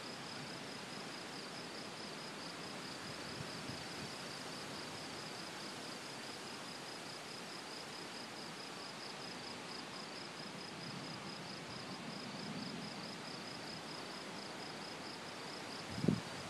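Night insects chirping in a fast, even pulse over steady hiss. A faint low rumble comes about twelve seconds in, and a sudden low thump right at the end.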